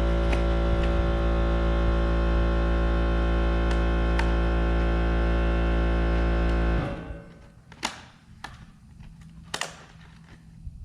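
A loud, steady electrical hum or buzz with many overtones cuts off suddenly about seven seconds in, followed by a few light clicks and taps.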